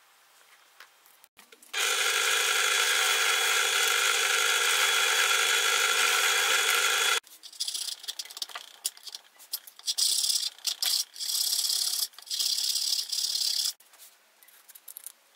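A power tool runs steadily for about five seconds and cuts off abruptly. Then a hand saw works a small workpiece clamped in a bench vise in a run of rasping back-and-forth strokes.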